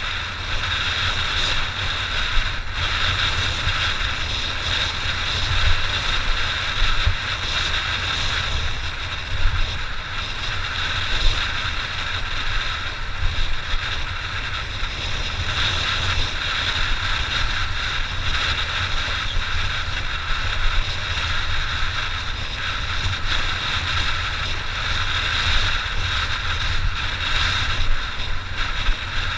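Honda XR600's single-cylinder four-stroke engine running steadily under way, with wind noise on the microphone.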